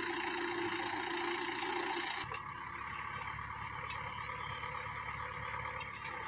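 Mahindra 475 tractor's diesel engine running steadily, the engine sound changing abruptly about two seconds in.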